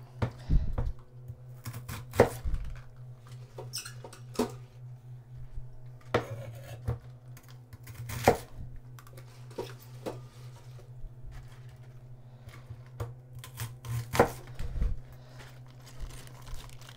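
A kitchen knife cutting through bok choy stalks and knocking on a wooden cutting board: separate sharp knocks, irregularly spaced a second or more apart, over a steady low hum.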